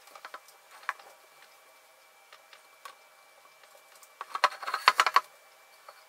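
Small clicks and taps of a paintbrush and hands working against a hard clay mask, with a quick run of louder taps about four seconds in.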